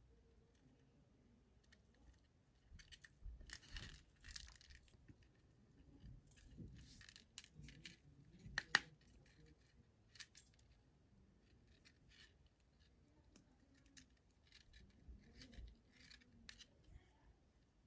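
Near silence with faint handling noise: nylon fishing line rustling between the fingers and small scattered clicks of a metal snap swivel being handled while a knot is tied, with one sharper click about halfway through.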